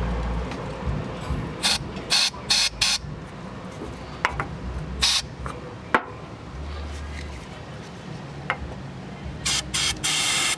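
Short hissing squirts from a spray bottle, in quick groups, as gasoline is sprayed into the intake of a Mustang that won't start because no fuel reaches the engine. A low rumble fades out in the first second, and one sharp click comes about six seconds in.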